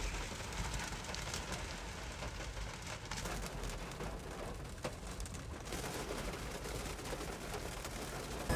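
Steady rain pattering on a car's roof and windshield, heard from inside the car as a dense stream of small drop hits.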